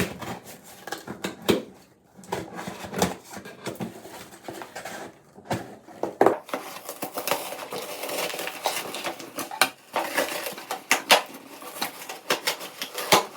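A shipping package being opened by hand: cardboard and brown packing paper rustling and crinkling, with many sharp knocks and clicks of handling. The crinkling is denser in the second half.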